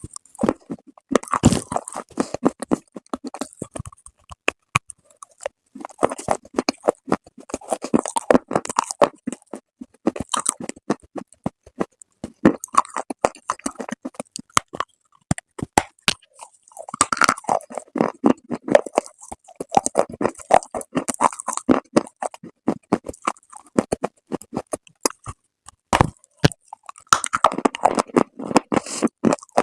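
Close-miked crunching and chewing of brittle dry clay, in bouts of dense crackling a few seconds long, separated by short lulls with only scattered clicks.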